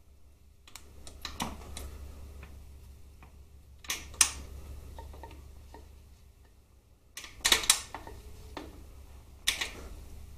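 Harley-Davidson Twin Cam gearbox being shifted by hand at its gear-change lever: four bursts of light metallic clicks and clunks as it is worked into gear.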